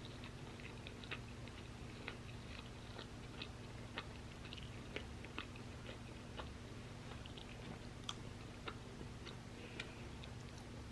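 Close-miked crunchy chewing of waffle fries: irregular sharp crunches, about one or two a second, over a faint steady hum.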